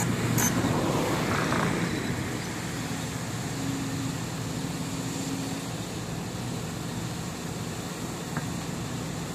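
Steady running of a Kobelco SK140 hydraulic excavator's diesel engine under load as its bucket pushes against a dump truck mired in mud.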